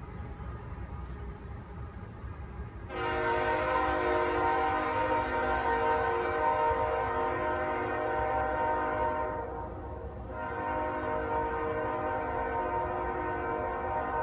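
A Nathan K5HL five-chime air horn on a GE locomotive sounds a long, steady chord, starting suddenly about three seconds in over a low rumble. It dips briefly about ten seconds in, then holds on again.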